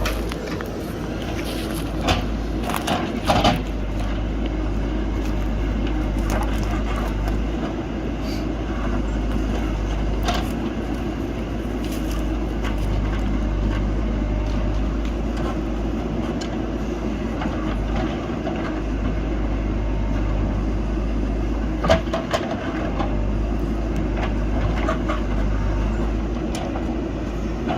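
JCB backhoe loader's diesel engine running steadily under work, with a few sharp knocks and cracks, about two and three seconds in and again later on.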